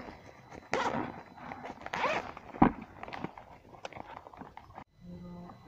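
Zipper of a soft fabric carrying pouch being pulled open, in short uneven scrapes with handling clicks, one sharp click about two and a half seconds in. Near the end there is a steady low hum.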